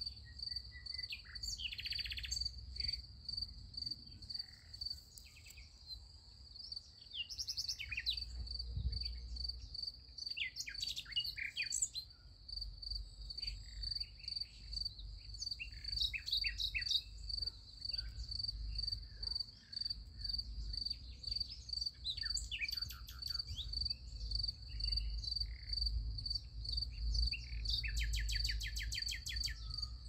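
Forest songbirds chirping and calling at intervals over a steady, high-pitched insect trill that pulses about twice a second; near the end a bird gives a fast, rattling trill. A low rumble runs underneath.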